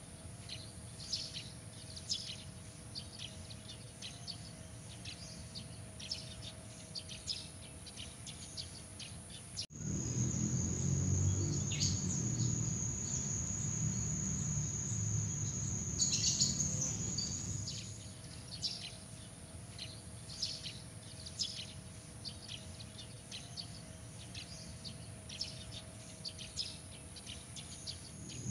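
Night-time nature ambience: crickets trilling steadily, with many short, high chirps over them. The sound changes suddenly about ten seconds in: the chirps mostly stop and a low rumble comes in under one steady high trill. About eighteen seconds in it switches back to the chirping.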